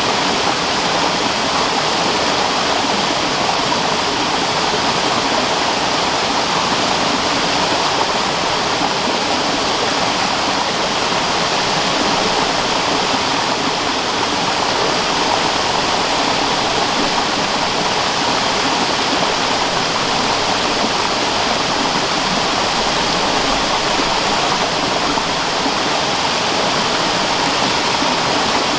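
Steady rushing of running water, an even noise with no breaks or distinct events.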